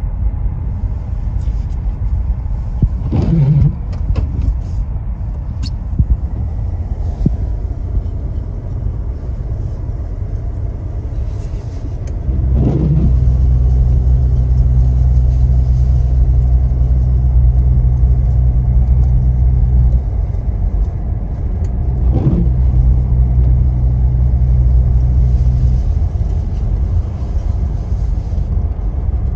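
A truck driving slowly, heard from inside the cab as a steady low rumble. Twice a deeper steady hum comes in for several seconds, each time starting with a short falling sweep, and there are a few small clicks.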